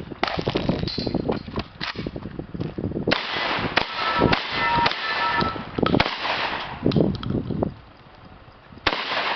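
Shotgun fire during a practical shooting stage: a string of shots in quick succession, densest in the middle, with a brief lull near the end before more shots.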